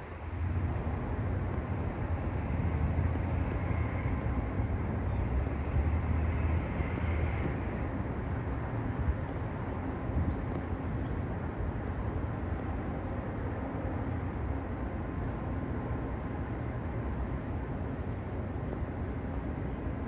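Steady low rumble of distant city traffic.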